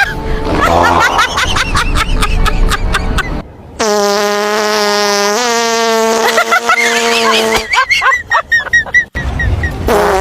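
Fart sounds: a sputtering run of rapid pops, then one long, steady buzzing fart held for about four seconds that steps up slightly in pitch partway, then more sputtering pops.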